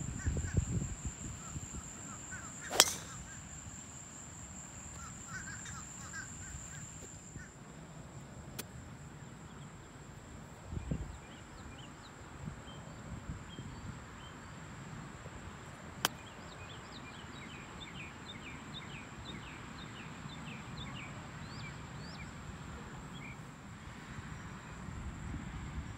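A driver strikes a golf ball off the tee with one sharp crack about three seconds in, and a fainter club-on-ball click comes later. Birds chirp throughout, over a steady high-pitched tone.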